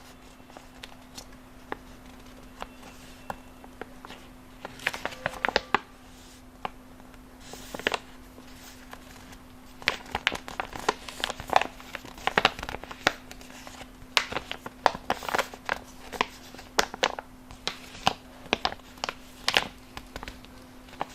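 Plastic flat pouch bag crinkling and crackling as it is handled, in irregular clusters of sharp crackles that grow busier in the second half.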